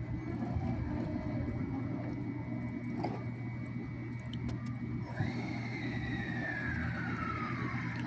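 JR 289 series electric train at the platform, giving a steady low hum. About five seconds in, a whine starts and slides steadily down in pitch.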